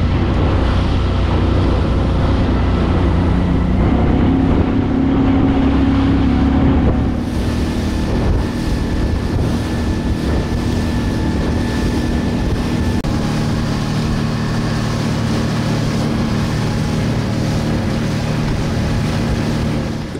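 Motorboat engine running underway, its pitch shifting a few times, with wind buffeting the microphone and water rushing past the hull.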